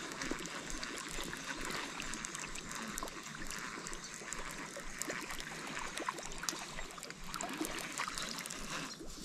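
River water running and trickling in a steady rush, with small scattered clicks over it.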